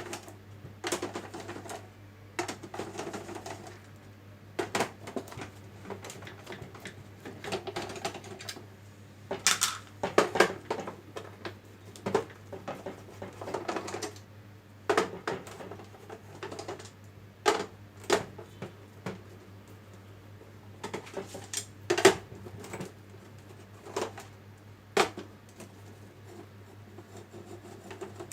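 Irregular clicks and knocks of the plastic housing and parts of an Epson EB-436W projector being handled and taken apart by hand, over a steady low hum.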